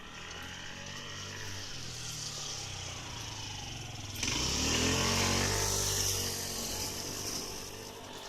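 Seibu electric train approaching and passing over a level crossing. A steady motor hum builds first. About four seconds in the noise jumps sharply louder as the train goes by close, with a hissing rush of wheels on rail, then eases off toward the end.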